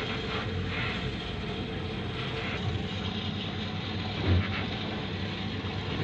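Steady low mechanical drone of machinery running in a fishing boat's hold, with a brief low thump about four seconds in.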